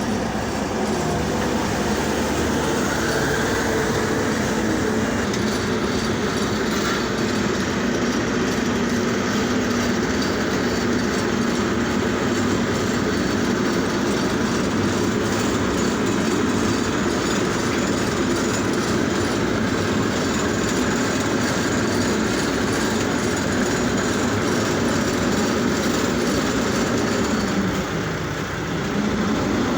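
Road-repair machinery running steadily, a continuous loud mechanical noise that eases off briefly near the end.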